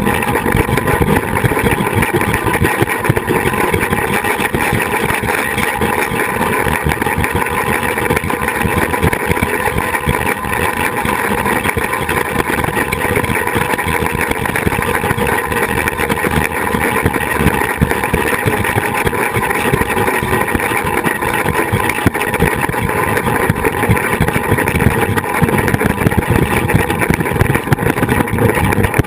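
Loud, steady rush of wind buffeting a camera mounted on a flying-fox zipline trolley, with the trolley's running gear rumbling along the cable as the riders travel at speed.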